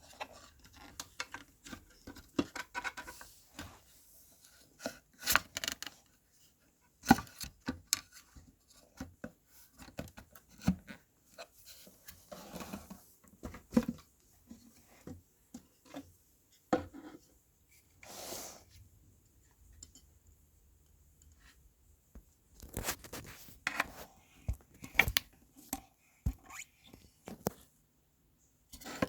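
Subwoofer being taken apart by hand: irregular clicks, knocks and short scrapes of parts and tools being handled, with quiet gaps between them.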